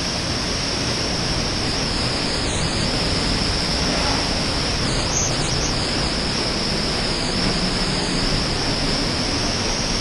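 Waterfall pouring into its pool, a steady, unbroken rush of falling water heard from inside the rock cave beside it.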